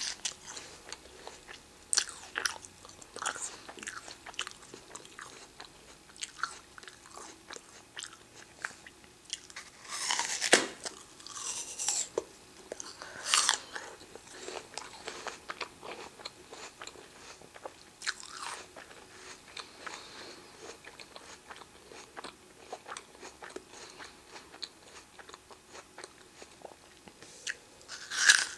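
A person biting into and chewing a raw apple: crisp, crunchy bites and chewing, with a few louder crunches along the way.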